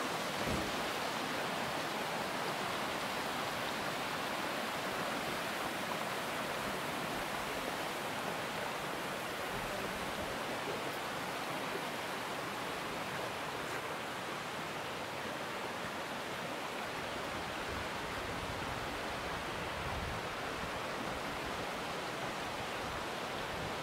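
Steady rushing of a mountain stream flowing over rocks, an even hiss at a constant level.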